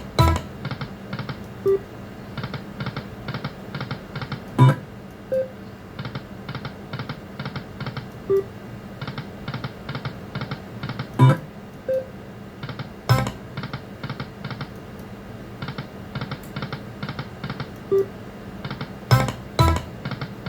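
Lightning Link Best Bet slot machine spinning: quick runs of short ticks at about five a second as the reels spin, a louder knock every few seconds between spins, and brief plucked-sounding game tones over a low steady hum.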